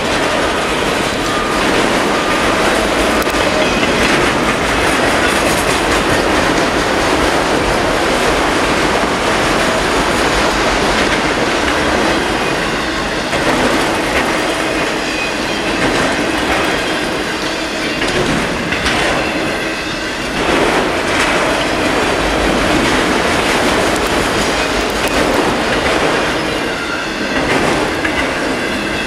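Freight cars of a long mixed-freight train rolling past, steel wheels clicking and rumbling over the rails in a steady, continuous run, with faint high squeals from the wheels now and then.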